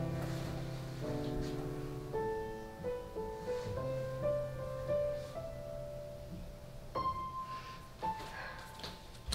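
Soft piano music: sustained low chords under a slow melody that climbs note by note, with a new higher note entering about seven seconds in.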